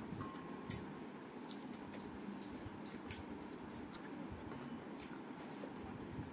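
Fingers scraping a stainless-steel bowl and then kneading rice with dal on a steel plate: soft squishing with scattered small clicks of fingertips against the metal, over a faint steady hum.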